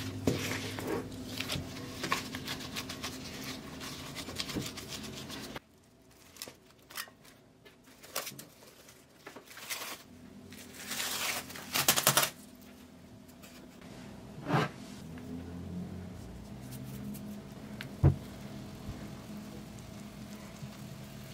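Gloved hands kneading and rubbing soft, oiled bread dough in a glass bowl. After a cut, plastic cling wrap crinkles briefly about halfway through, and a single sharp thump comes near the end as the bowl of risen dough is tipped out onto a silicone mat.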